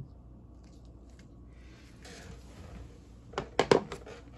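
Vintage ratchet wrenches handled and set down on a cloth-covered surface: a soft rustle about two seconds in, then a quick cluster of about four sharp knocks near the end.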